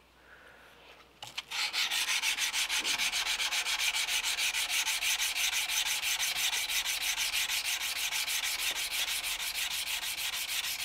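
Sandpaper rubbed by hand along the flats and bevels of a steel knife blade before heat treatment, in rapid, even back-and-forth strokes, about five a second, starting about a second and a half in.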